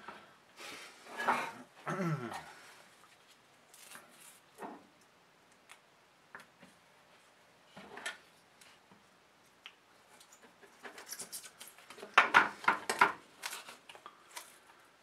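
Double-sided foam mounting tape pulled off its roll, cut and pressed onto a plastic 18650 battery holder: scattered rubbing and clicks, a short squeak that falls in pitch about two seconds in, and a run of quick rasping tears about twelve seconds in, the loudest part.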